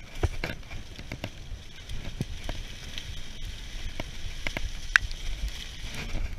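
Mountain bike riding fast down a wet, leaf-covered dirt trail: steady tyre noise over wet leaves and dirt, with frequent clicks and knocks from the bike rattling over bumps, the sharpest about five seconds in, and a low rumble of wind on the bike-mounted camera.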